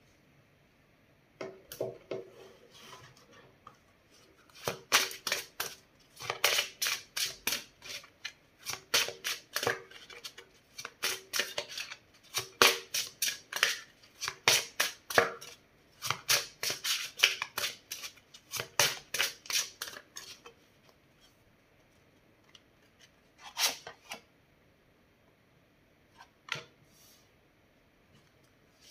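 A deck of tarot cards being shuffled by hand: quick flurries of cards flicking and slapping against each other, burst after burst for about twenty seconds. Then a couple of single taps as cards are laid down on a wooden table.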